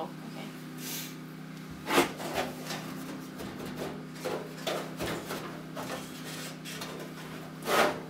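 Sheet-metal front panel of a Martin propane wall heater being worked loose and slid up off the cabinet: scraping and rubbing with scattered clicks, and louder knocks about two seconds in and near the end.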